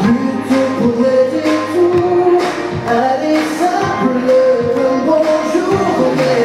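Several male and female voices singing a pop song in harmony through a PA system, over a steady beat.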